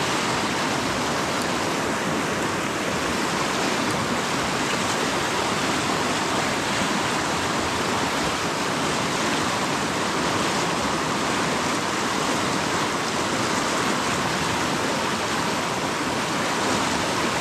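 Fast current of the upper Jordan River rushing steadily.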